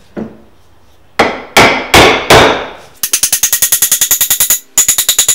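Hammer striking the end of a hickory axe handle to drive it into the eye of a forged axe head for a tight test fit. Four heavy blows come first, each ringing out, then a fast run of lighter taps at about ten a second, a brief pause, and another run of taps.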